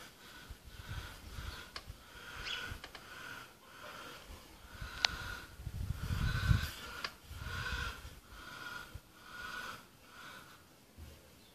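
Hands rubbing and rolling damp semolina against a wide clay platter to form berkoukech grains: rhythmic rubbing strokes, about one every three-quarters of a second, with a few sharp clicks.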